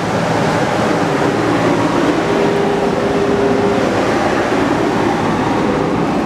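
Backhoe loader's diesel engine running close by, loud and steady, with a held tone standing out for a couple of seconds midway.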